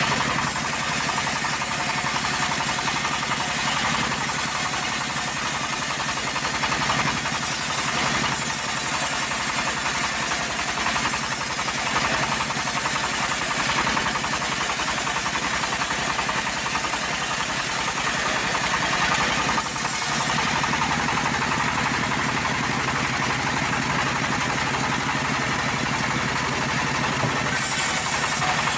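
Homemade bandsaw mill running, its blade ripping lengthwise through a teak log with a steady mechanical noise. The high hiss eases a little about two-thirds of the way through.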